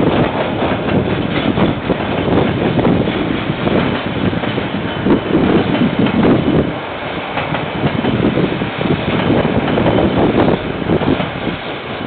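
Container wagons of a freight train rolling steadily past on the rails, with repeated wheel clacks, heard through a security camera's microphone.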